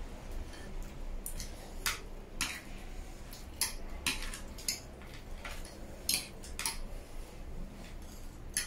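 Forks and spoons clinking and scraping against food trays, in irregular sharp clicks about once a second.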